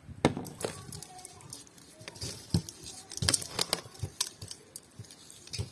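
A string of irregular clicks and knocks with rustling, as of things being handled.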